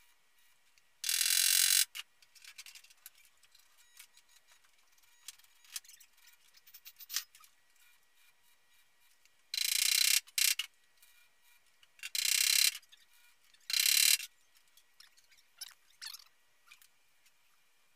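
Gasless flux-core MIG welder laying tack welds on sheet steel: short bursts of arc crackle, one about a second in, then three more close together between about nine and a half and fourteen seconds, with faint scattered clicks between them.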